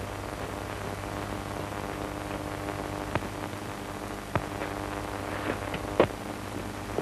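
Steady hiss and low hum of an early-1930s optical film soundtrack, with a few brief clicks about three, four and a half, and six seconds in.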